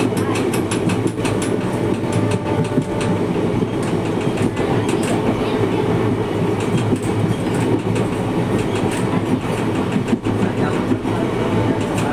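A passenger train running at speed, seen from an open coach doorway: a steady rumble of wheels on the track, with sharp clickety-clack clicks from the rail joints, thickest in the first few seconds.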